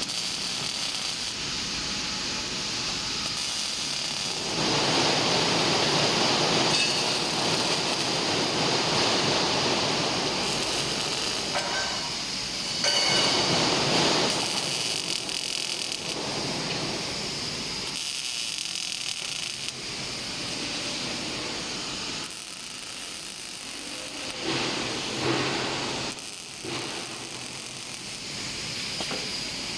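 Robotic arc welding: the arc crackling and hissing in stretches of a few seconds, stopping and starting again several times.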